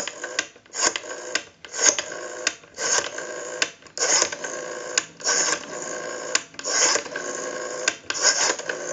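Western Electric 500 rotary telephone dial being pulled round and spinning back, again and again, about once a second, clicking as it pulses out each digit in turn.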